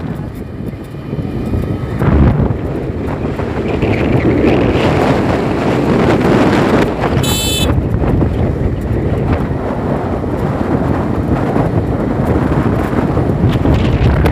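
Heavy wind buffeting the microphone while riding in a moving vehicle, over the vehicle's running noise. A brief high-pitched beep sounds about seven seconds in.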